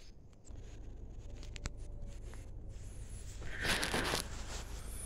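Footsteps and rustling handling noise from a phone carried while walking, with a single click early on and a louder scuffing rustle about three and a half seconds in, over a low rumble.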